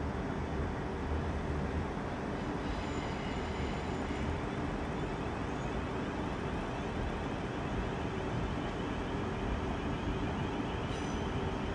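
A passenger train at a station platform: a steady drone with faint steady hums through it, and a short sharp click near the end.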